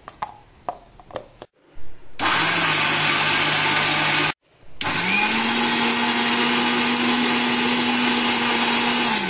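Electric mixer grinder with a small steel chutney jar grinding roasted peanuts, green chillies, ginger and garlic. A few clicks come first. The motor then runs for about two seconds, stops briefly, and starts again at a higher pitch for about four and a half seconds, winding down near the end.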